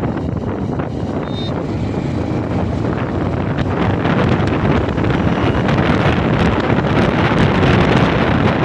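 Wind rushing over the microphone of a moving Bajaj Pulsar NS160 motorcycle, with the engine and road noise underneath. It gets louder a few seconds in.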